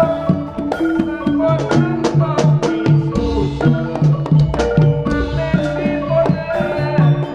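Live Javanese jaranan music: hand drums beating a steady, busy rhythm over ringing gamelan-style metallophone notes.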